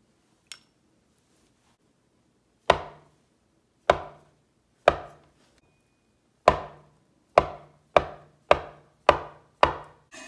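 Cleaver slicing through a block of soft tofu and knocking on a plastic cutting board: nine chops, about a second apart at first, then quicker, roughly two a second, near the end.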